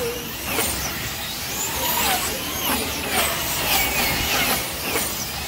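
Several slot car electric motors whining as the wing cars race around the banked track, their pitch sweeping up and down over and over as they accelerate down the straights and brake into the turns.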